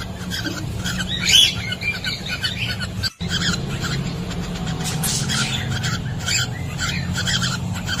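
Pacific parrotlets chirping in many short, high calls, the loudest about a second and a half in, over a steady low hum; the uploader presents these as the birds' breeding calls. The sound cuts out for an instant about three seconds in.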